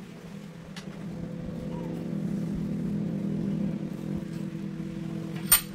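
Steady motor hum that grows louder over the first couple of seconds, with a faint click about a second in and a sharp click near the end.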